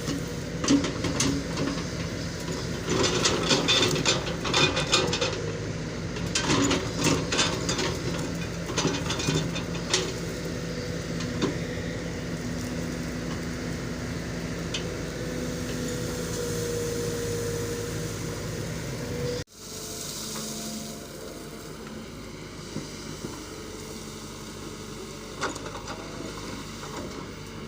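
A powered machine running steadily with a low hum and repeated metallic clattering and clicking, densest in the first third. The sound cuts off suddenly about two-thirds of the way in, then carries on quieter.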